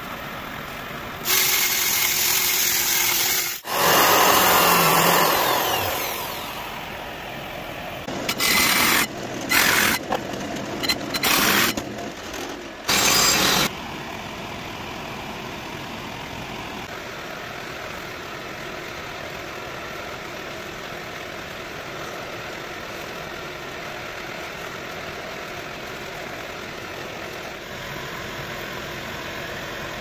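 Workshop power-tool noise in several loud stretches that start and stop abruptly, the last few short and clipped, followed by a steady background hum.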